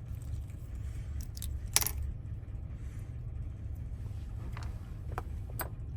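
Small metal clicks and clinks of lock wafers and a key being handled in a 2017 Express van door lock cylinder during rekeying, a handful of separate clicks with the loudest about two seconds in. A steady low hum runs underneath.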